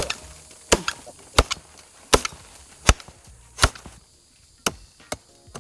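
Machete chopping into a thick, woody curare vine: sharp blows at a steady pace, about one every three-quarters of a second, then two lighter strikes near the end.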